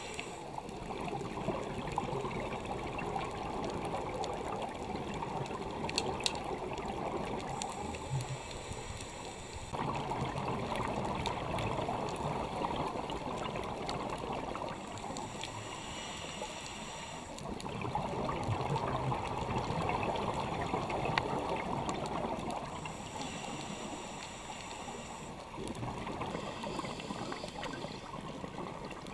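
Scuba diver breathing through a regulator underwater. Each exhale is a bubbling rush lasting about five seconds, each inhale a short hiss, and the cycle repeats about every eight seconds: four exhales and three inhales.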